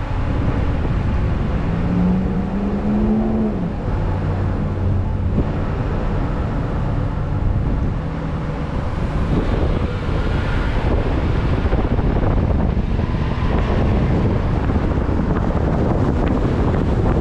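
Road traffic at an intersection: vehicle engines running, one rising in pitch as it accelerates about two seconds in. From about halfway through, wind on the microphone grows as the recording vehicle gets moving.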